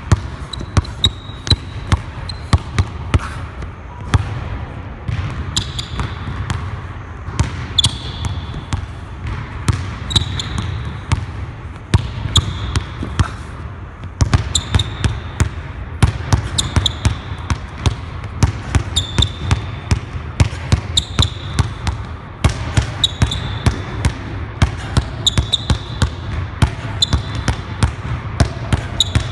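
Basketball dribbled hard on a hardwood court in rapid, uneven series of bounces, with short high sneaker squeaks on the floor between them.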